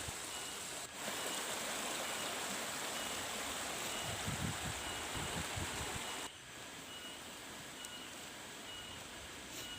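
Steady rushing of flowing water, changing abruptly about a second in and again just past six seconds, with a faint high chirp repeating at an even pace.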